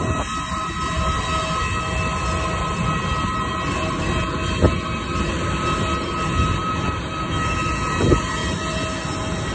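Steady rumble with a high whine of several held tones, typical of a parked airliner's auxiliary power unit running on the apron. Two brief knocks stand out, about four and a half and eight seconds in.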